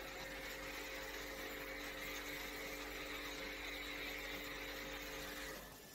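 Electric pressure washer running steadily, its motor humming under the hiss of water jetting onto an air conditioner coil; it cuts off suddenly about five and a half seconds in.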